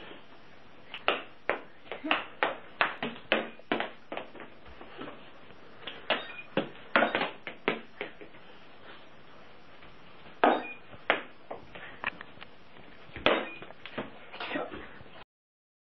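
Balls tossed at a homemade plywood target game knocking against the box and wall in a quick, irregular run of sharp hits. A few hits are followed by a short high beep from the game's small speaker as a score registers.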